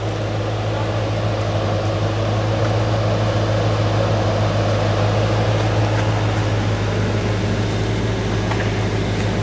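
Vehicle engine running steadily with a constant low hum, a little louder through the middle, while a Range Rover stuck deep in mud is pulled out on a line.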